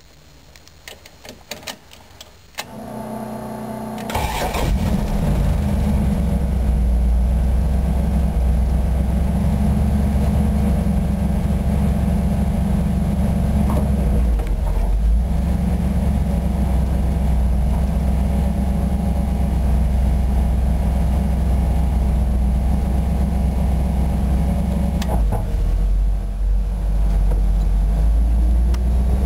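Dodge B300 van's custom-built 360 cubic-inch V8, fitted with headers, heard from inside the cab. After a few faint clicks the starter cranks it for about a second and a half. It catches about four seconds in and settles to a loud, steady idle near 1000 rpm, then begins to rise in pitch near the end.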